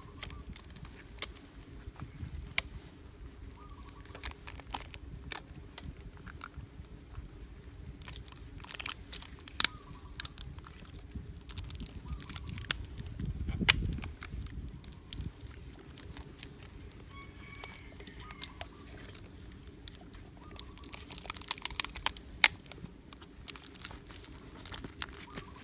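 Clear packing tape being pulled off its roll and wrapped round a PVC pipe joint: crackling and sharp clicks, with two denser stretches of crackle about nine seconds in and again around twenty-one seconds in.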